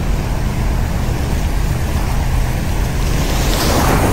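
Ocean surf washing onto the beach, a steady hiss of breaking waves with wind rumbling on the microphone; a wave breaks louder about three and a half seconds in.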